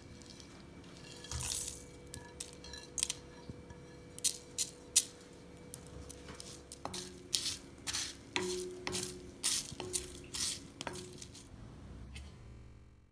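Whole spices (cumin and coriander seeds, cardamom, cloves, bay leaves) frying in hot oil in a kadai, crackling with irregular sharp pops.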